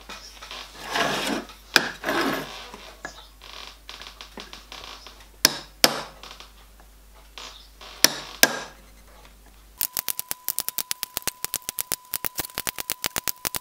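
Hand-held centre punch snapping into a copper plate: a few sharp clicks with fainter ticks and scraping between, centre-popping along a scribed line. For the last few seconds a fast, even ticking with a steady tone under it takes over.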